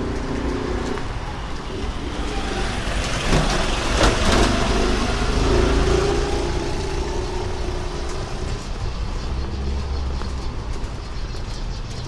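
Street traffic: a motor vehicle passes close by, its noise building to a peak about four seconds in and then fading over a steady low rumble.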